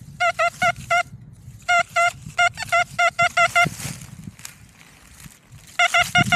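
Metal detector beeping in quick runs of short, identical mid-pitched tones as its search coil sweeps over the ground, each run signalling metal under the coil. First comes a run of about five beeps, then about ten after a short pause, then four more near the end.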